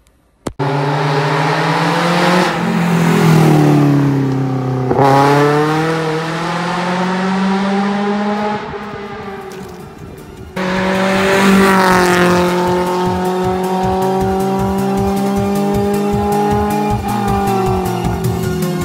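A car engine revving hard: its pitch drops, then climbs steadily through a gear. After a sudden cut about ten seconds in, it holds a high, steady pitch. Electronic music with a steady beat comes in underneath in the second half.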